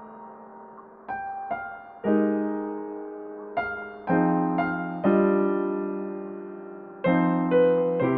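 Slow, gentle piano background music: single notes and chords struck about once every second or two and left to ring out.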